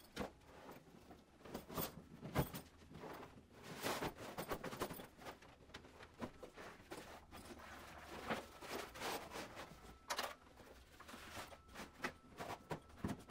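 Rustling, scraping and scattered knocks of a fabric backpack with a folded inflatable kayak inside being handled, pushed into and stood on end. Near the end a paddle shaft goes into the bag with a knock.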